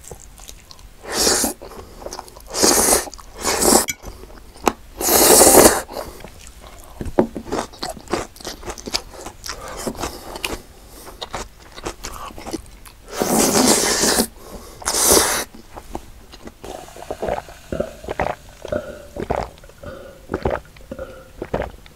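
Close-miked eating sounds: several loud, crunchy bites and chewing of fried chicken. From about three-quarters of the way in come softer swallowing gulps as iced cola is drunk from a glass mug.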